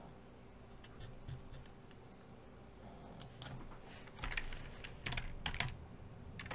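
Computer keyboard being typed on, quietly: scattered keystrokes, a few in the first half, then quick clusters of them in the second half.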